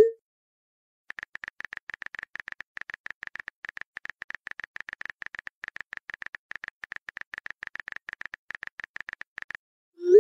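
Phone keyboard typing sound effect: rapid, irregular clicks, with a short rising pop of a message being sent at the start and again at the end.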